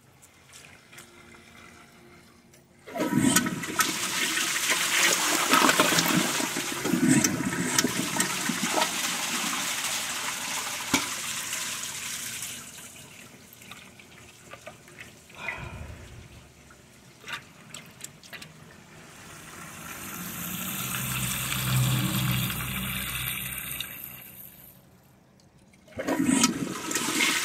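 Water in a Kohler Gleam low-flow toilet: a loud rush of water, then quieter small splashes as a hand stirs dirt in the bowl, and a flush starting suddenly near the end.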